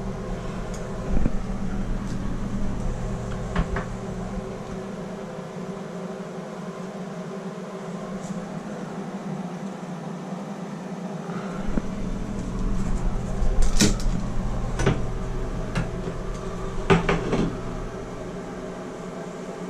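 Plumber's torch flame burning steadily as it heats a tub and shower valve and its copper fittings for soldering. A few sharp knocks and clatters from handling the work cut through it, the loudest a little past the middle.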